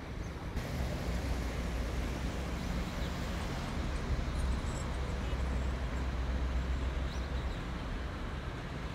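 Steady road-traffic noise with a low engine hum, setting in abruptly about half a second in.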